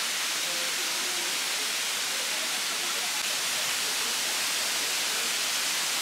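Waterfall cascading down a rock face: a steady, even rushing hiss.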